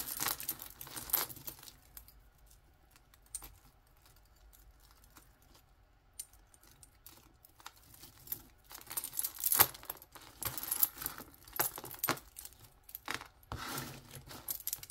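Costume jewelry jangling and clinking as tangled metal chains and beaded necklaces are pulled apart by hand. The clinking comes in two spells, briefly at the start and again from about eight seconds in, with only a few light clicks between.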